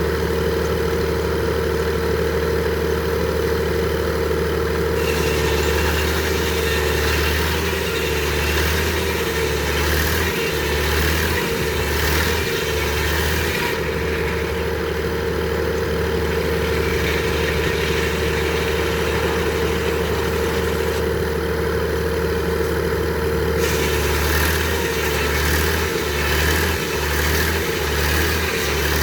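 Frick circular sawmill running steadily under engine power, with a constant hum and a steady whine. Twice it turns louder and hissier, with a few knocks: the saw cutting through a log.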